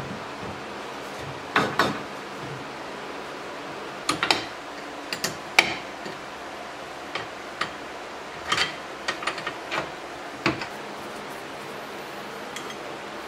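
Scattered knocks and clunks of a wooden block being set on a wood lathe and the metal tailstock being moved up and tightened with its handwheel, about a dozen sharp knocks with short clatters between, over a steady background hiss.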